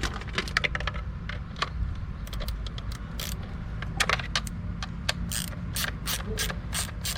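Ratchet socket wrench clicking through a series of short back-and-forth strokes, settling in the second half into an even run of about two ratchet strokes a second.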